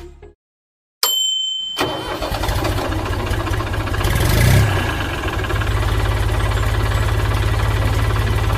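An engine starts up with a click and then runs steadily with a fast, even throb, swelling briefly about halfway through.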